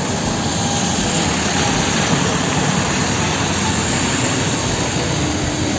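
Fuel tanker truck driving on a wet road: a steady rushing of engine and tyres on wet tarmac.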